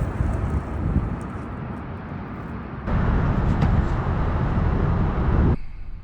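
Steady low rumbling outdoor noise with no distinct shot. It jumps louder about three seconds in and cuts off abruptly near the end.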